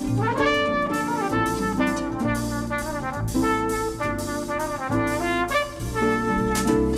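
Easy-listening instrumental music with brass instruments (trumpets and trombones) playing the melody over a steady bass line.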